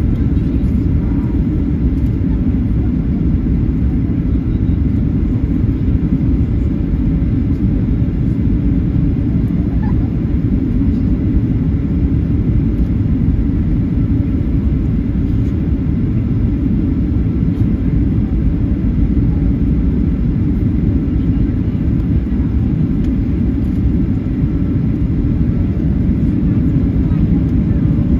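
Steady low rumble inside the cabin of a Boeing 737-800 on final approach: its CFM56-7B jet engines and the airflow around the airframe, holding even throughout.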